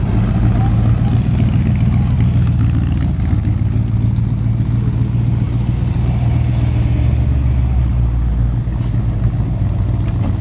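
Car engine running at low revs, a steady low drone that deepens briefly for a couple of seconds past the middle.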